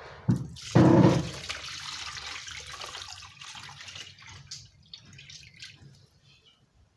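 Water poured from a stainless steel bowl into a plastic basin over raw tripe: a short knock, then a loud splash about a second in, then a pouring rush that fades into trickles and drips.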